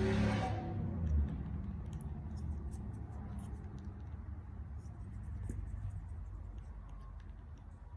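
Faint scattered clicks and scratches over a low hum: a parrot nibbling at and cracking its food with its beak. A louder rushing noise dies away in the first half second.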